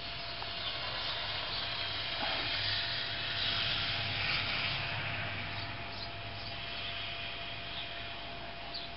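A car passing on the street: its tyre and road noise swells to a peak about four seconds in, then fades.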